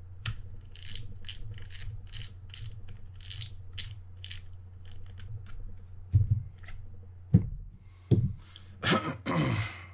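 Front drag knob of a Quantum Catalyst 40PTS spinning reel being unscrewed, its clicker giving a run of sharp, evenly spaced clicks, about three a second. After that come two louder knocks as the spool is handled and lifted off the shaft, and a rasping noise near the end.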